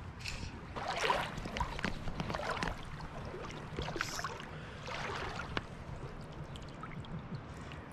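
Shallow river water splashing and sloshing in irregular bursts as a hooked sea-run cutthroat trout is grabbed by hand and lifted from the water.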